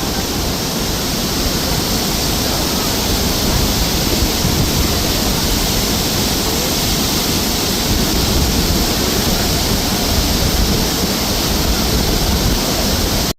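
Steady roar of rushing whitewater, with wind buffeting the microphone low down.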